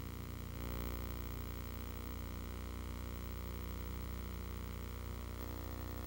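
Steady electrical hum with a ladder of overtones under an even hiss, the background noise of a transfer of silent home-movie film, with no other sound.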